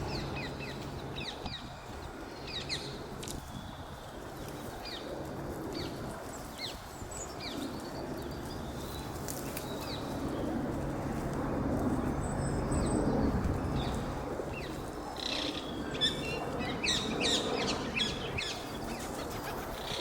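Small birds chirping, with many short high calls scattered throughout that come thicker in the last few seconds, over a steady low outdoor background.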